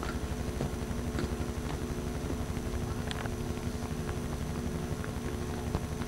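Steady low rumble of wind buffeting the microphone, under a constant faint hum from the home camcorder itself, with a few faint scattered clicks.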